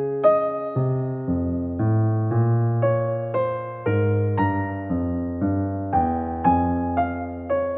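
Background music: an electric piano plays a gentle melody over sustained bass notes, about two notes a second.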